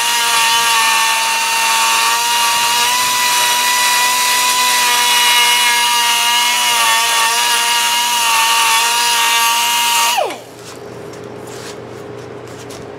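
Power tool cutting out a sheet-metal saw guard: a loud, steady high-pitched whine over a hiss. About ten seconds in it is switched off and the whine falls quickly in pitch and dies away, followed by a few light clicks.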